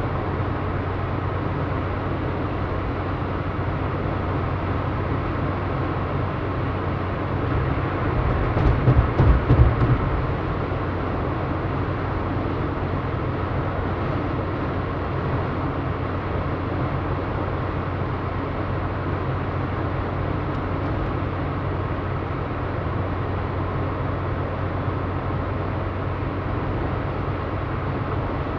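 Steady low road and engine rumble heard inside a moving car's cabin. About eight seconds in, a louder stretch of irregular low thumps lasts around two seconds, then the steady rumble carries on.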